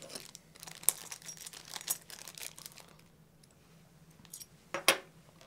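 Small stainless steel friction-hinge parts and washers clicking and clinking against each other and the tabletop as they are handled and fitted together. Light clicks come thick through the first three seconds, then two sharper clicks close together near the end.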